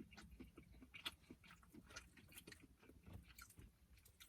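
Faint chewing and biting of seafood, with scattered small clicks and crunches.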